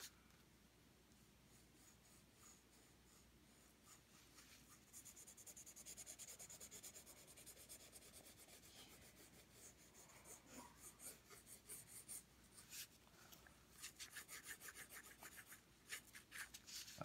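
Graphite pencil shading on paper: faint, quick back-and-forth scratching strokes, mostly from about five seconds in, after a near-silent start.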